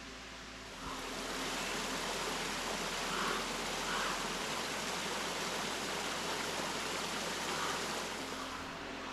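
Steady rushing hiss that starts suddenly about a second in and eases off near the end.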